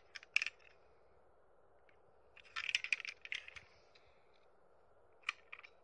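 Plastic Daiso Petit Densha toy train cars clicking and rattling as they are handled and set onto plastic toy rails. A few light clicks come about half a second in, a longer run of rattling clicks in the middle, and a few more near the end.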